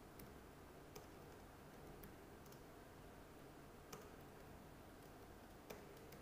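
Faint computer keyboard keystrokes: about five separate, widely spaced clicks over low steady hiss.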